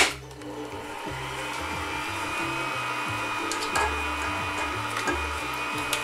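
Kenwood stand mixer running at low speed with a steady motor whine, its beater creaming butter and sugar as the eggs go in. Background music plays underneath.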